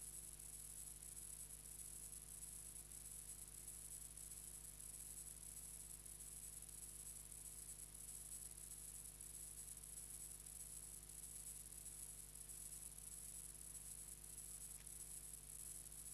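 Near silence: a faint steady electrical hum and hiss with nothing else, as on a silent film's soundtrack.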